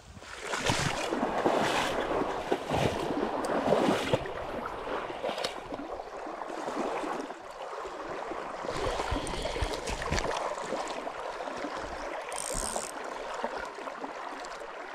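Water splashing and rushing in a small trout stream close to the microphone, uneven in loudness with scattered knocks and clicks, loudest in the first few seconds.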